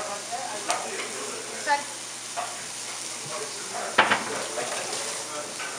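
Mushrooms sizzling as they fry in oil in a hot pan, a steady hiss with a few sharp knocks against the pan, the loudest about four seconds in.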